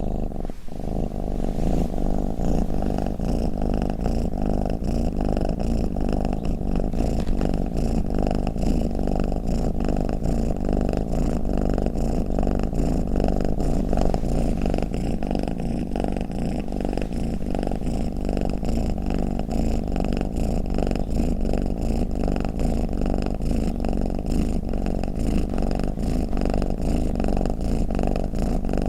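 Domestic cat purring steadily, a continuous low rumble of rapid pulses, with a brief break just after the start.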